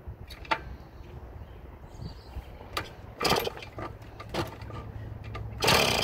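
1977 Yamaha GT80's two-stroke single being kicked over, a few separate knocks, then about five and a half seconds in it fires and runs loudly and raggedly, popping rapidly. A long-dormant engine that "wants to run" but is held back by a dirty carburetor and a weak coil ground.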